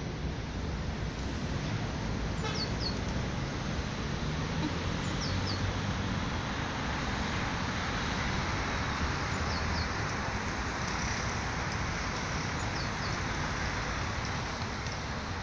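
Steady city street traffic noise with a low rumble, with a bus going past near the end. A small bird chirps in quick pairs several times.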